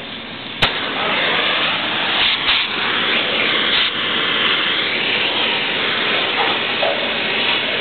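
Handheld cutting torch starting on steel plate: a sharp crack about half a second in, then a steady, loud hiss as it cuts, throwing sparks.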